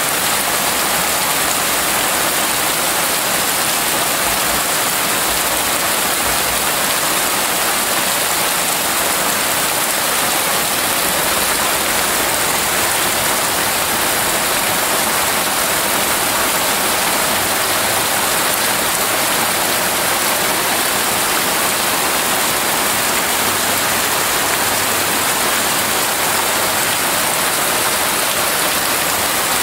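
Rain pouring steadily onto wet grass, soil and broad plant leaves: an even, unbroken hiss with no letup.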